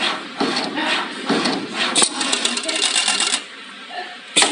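Channel letter CNC bending machine at work: metallic clicking and clattering in short bursts, with a dense run of rapid clicks in the middle, a quieter spell, then a sharp clack near the end.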